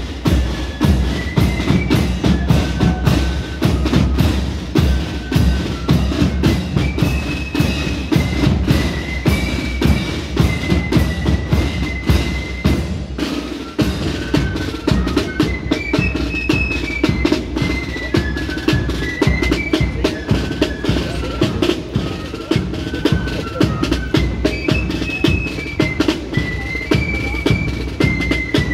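Marching flute band playing a tune: a high, bright melody in repeated phrases, carried over a steady beat of rattling snare drums and a bass drum.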